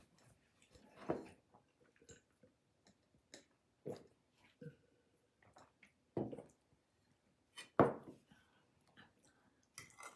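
A person drinking water from a glass: a few separate gulps and mouth sounds spaced a second or two apart, with a sharp knock about eight seconds in, the loudest sound.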